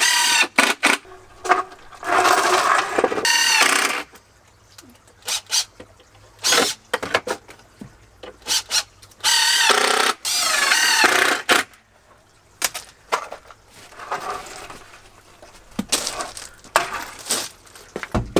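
Cordless drill/driver driving screws through battens into wooden boards, in two runs of about two seconds each with a wavering motor whine, with clicks and knocks of wood and screws being handled between them. Near the end, footsteps crunch on gravel.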